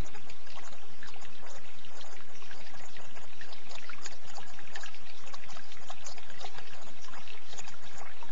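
Running water trickling steadily: a continuous splashing hiss made of many small splashes, with no change in level.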